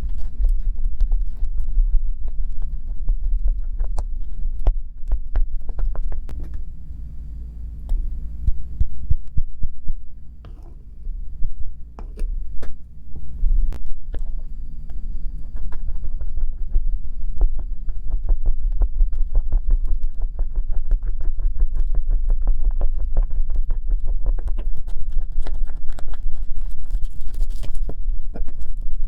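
Homemade slime being mixed and handled: a stream of sharp clicks and taps that grows into a fast, dense run in the second half, over a steady low throbbing hum.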